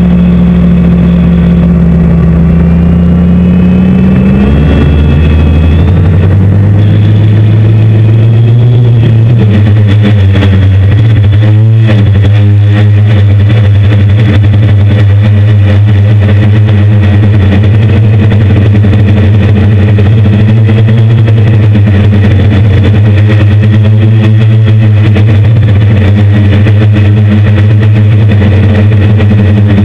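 Six brushless motors (750Kv Turnigy NTM) spinning 10-inch propellers on a hexacopter, heard close up from the onboard camera as a loud steady drone. It steps up in pitch about four seconds in and again near nine seconds as the throttle is raised, then holds with slight rises and falls.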